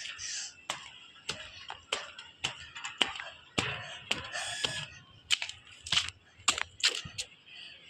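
A series of sharp, irregularly spaced clicks and knocks, about a dozen, with a short harsher noisy burst a little after four seconds in.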